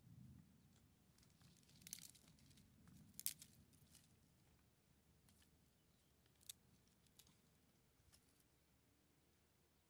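Faint crackles and snaps of dry twigs being handled and arranged by hand, the sharpest crack about three seconds in and a few lighter clicks later, over near silence.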